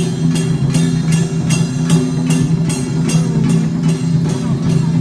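Music with a steady beat of percussion strikes, about three a second, over held low tones, typical of a Taiwanese temple festival procession.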